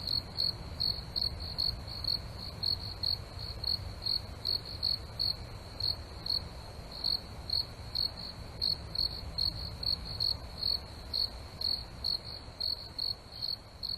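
A cricket chirping steadily, short high chirps repeating about two to three times a second, over a low steady rumble.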